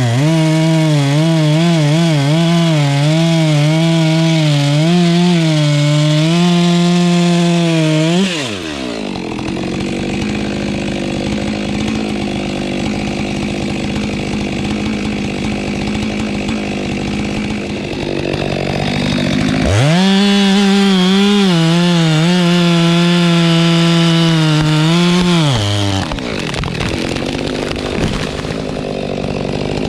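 Chainsaw at full throttle cutting through wood, its engine pitch wavering under load, then dropping to idle about eight seconds in. It revs up again for about six seconds near two-thirds of the way through and falls back to idle.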